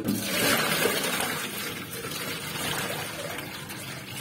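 Water pouring and sloshing in a plastic tub. It starts suddenly and eases off over the next few seconds.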